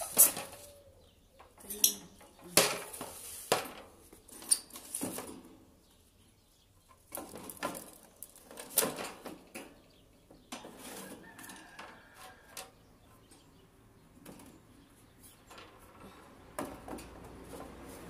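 Wire birdcage clinking and rattling as hands work at its door and put a fitting back inside: a series of sharp metallic knocks with pauses between them.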